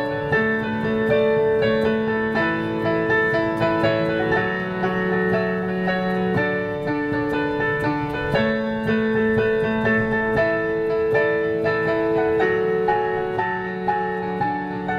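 Piano music: held low chords that change about every two seconds, under a steady run of higher notes.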